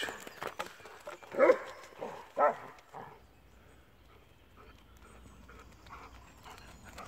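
A dog gives two short barks, about a second and a half and two and a half seconds in.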